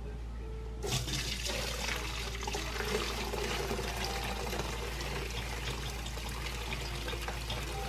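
Chicken broth being poured from a slow cooker insert through a strainer into a stainless steel pot, straining it. The liquid splashing starts about a second in and runs steadily.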